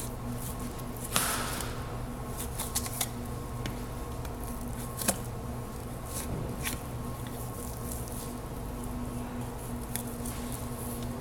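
Butcher's knife working through a lamb carcass: scattered small clicks and scrapes of the blade against bone and meat, with one louder scrape about a second in, over a steady hum.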